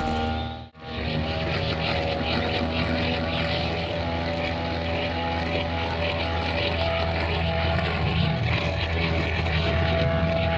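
Brushcutter engine running steadily at high speed. The sound drops out briefly near the start, then carries on unchanged.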